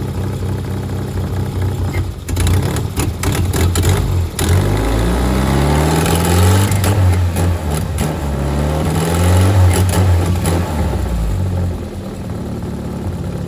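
Toyota 4E-FTE 1.3-litre turbocharged four-cylinder engine running, blipped several times so its note rises and falls, then dropping back to idle. It won't rev properly because the coolant temperature sensor is unplugged.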